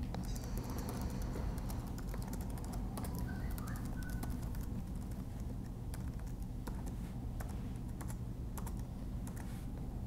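Typing on a MacBook Pro laptop keyboard: light key clicks coming irregularly, over a steady low hum.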